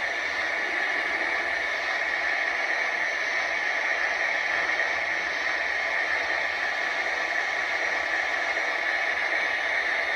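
Steady hiss from a Lionel Vision Line GS-4 4449 model steam locomotive, stepping up to a louder, even level at the start as its smoke output is turned up from low.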